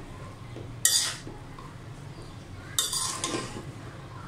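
A metal spoon stirring fried rice in a metal pan, scraping and clanking against the pan twice, about a second in and again near three seconds.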